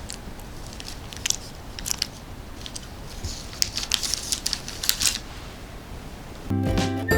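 Close-miked eating sounds of someone biting and chewing a taro pancake: scattered crisp crunches and mouth clicks, busiest from about three and a half to five seconds in. Music starts near the end.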